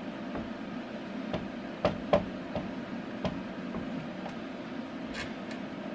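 Marker writing on a whiteboard: a few short taps and scratchy strokes spaced over several seconds, over a steady low room hum.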